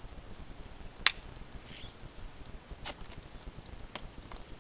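Thin plastic water bottle clicking and crackling as it is blown into and handled: one sharp click about a second in, then two fainter ones.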